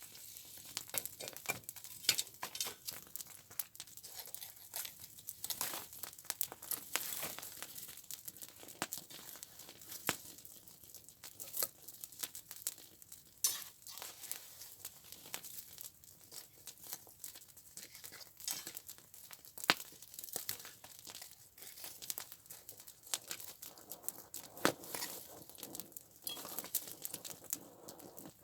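Small campfire crackling, with a steady run of irregular sharp pops and snaps, a few louder ones scattered through.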